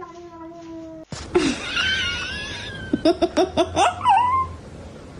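A grey cat's drawn-out meow falling in pitch and trailing off. About a second in it cuts to a high-pitched voice squealing, then a quick run of short yelps and a brief whine.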